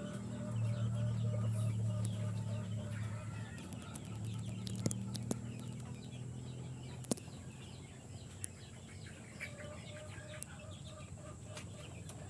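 A flock of chickens clucking and peeping in many short overlapping calls, with a few sharp clicks. A low steady hum underneath fades out about halfway through.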